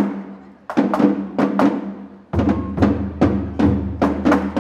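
Japanese festival hayashi played on a dashi float's taiko drums: quick, sharp drum strikes at about four or five a second. A deeper booming drum joins about halfway through.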